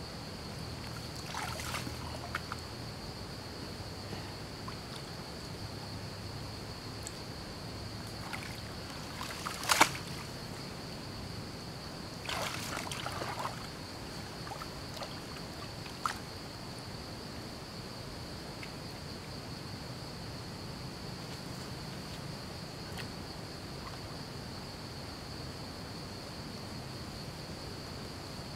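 Hands splashing and sloshing in shallow muddy water, with one sharp splash about ten seconds in and a second of rougher splashing a couple of seconds later. A steady high-pitched insect drone runs underneath.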